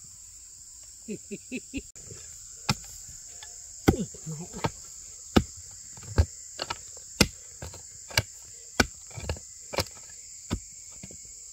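A digging tool chopping into the earth: a run of sharp strikes about one a second, starting nearly three seconds in, with a few lighter knocks before them. A steady high-pitched insect drone runs underneath.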